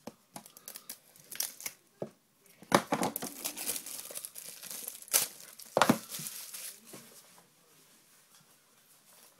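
A sealed trading-card pack wrapper being torn open and crinkled by hand, in a run of sharp crackles and rustling bursts that die down near the end.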